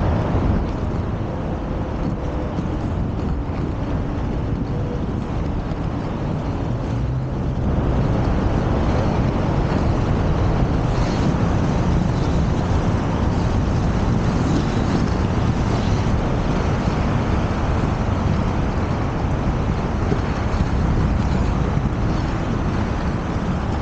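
Wind rumbling on the microphone over a steady wash of road traffic, the low rumble filling out and getting a little louder about eight seconds in.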